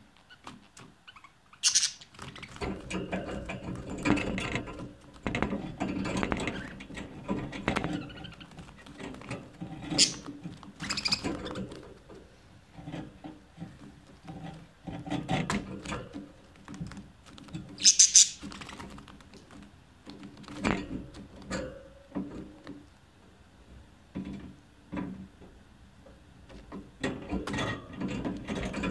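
Budgerigars chattering and warbling: an irregular stream of clicks and short sharp chirps, the loudest chirp about two-thirds of the way through.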